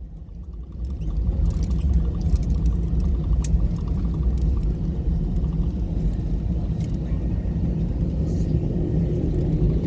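Airbus A319's jet engines, heard from inside the cabin, rising in power about a second in and then running as a steady low rumble with a droning hum.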